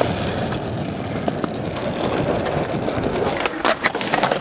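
Skateboard wheels rolling steadily over concrete, with a few sharp clicks near the end.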